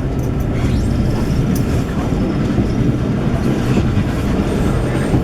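Railway carriage of a steam-hauled train running along the track: a steady low rumble of wheels and coach with a few faint ticks.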